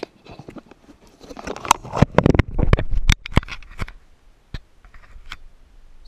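Close handling noise as a GoPro Hero 3 is shut into its waterproof plastic housing: a loud run of clicks, knocks and rubbing right on the camera, busiest in the middle, then dying down.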